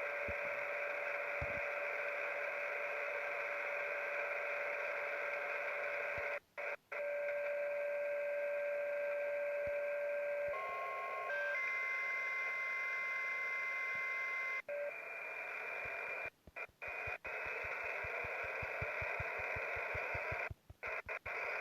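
Shortwave radio receiver audio on an HFGCS frequency: narrow-band static hiss with steady electronic tones coming and going, a single low tone about seven seconds in giving way to several tones sounding together, then fading out about fifteen seconds in. The signal drops out briefly a few times, and rapid low clicks run through the last few seconds.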